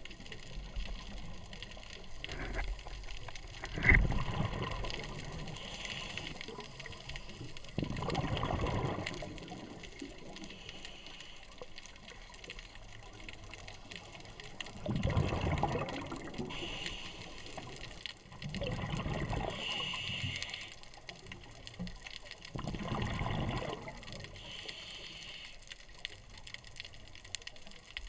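Scuba regulator breathing heard underwater: five gushing bursts of exhaled bubbles, a few seconds apart, with fainter hissing inhalations between them.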